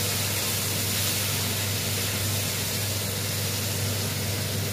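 Steady hiss and sizzle of a curry of fried potato and pointed gourd cooking in the pan just after water was added, over a steady low hum.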